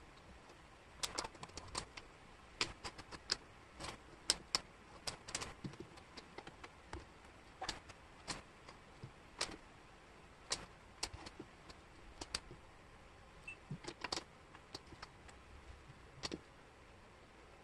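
Small wooden jigsaw puzzle pieces clicking against each other and the tabletop as they are picked up and sorted, in irregular light taps.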